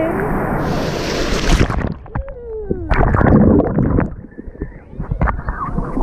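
A surf wave washing over a camera held at the waterline: a rush of splashing water, then muffled gurgling and bubbling about two seconds in as the microphone dips underwater. A second muffled stretch follows near the end.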